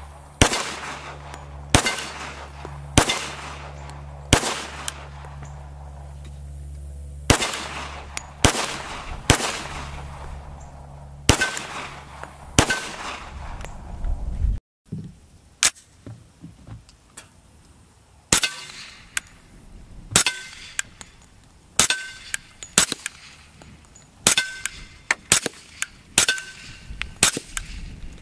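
Heckler & Koch Mark 23 .45 ACP pistol firing: about nine unsuppressed shots, roughly a second apart, each with a ringing tail. Midway there is a cut, then a quicker string of quieter shots through its KAC suppressor, several followed by a brief metallic ring from steel targets being hit.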